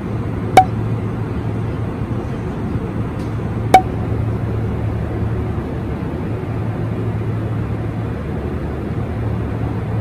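Steady airliner cabin noise, the low rush of engines and air in flight. Two sharp clicks about three seconds apart stand out above it.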